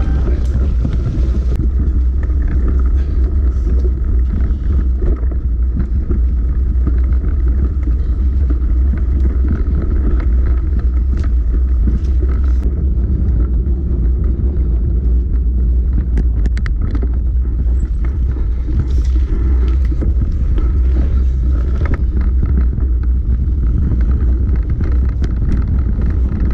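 Steady low rumble of wind buffeting a rider-mounted camera's microphone and mountain-bike tyres running over a dirt trail, with scattered short clicks and rattles.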